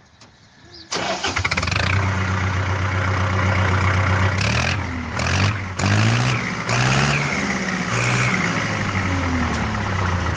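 An engine starting abruptly about a second in and running, revved up and down several times in the second half.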